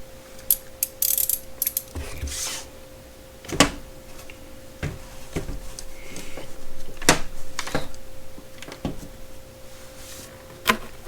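Irregular clicks and knocks of metal ratcheting box-end wrenches being handled, a few sharp ones standing out, over a faint steady hum.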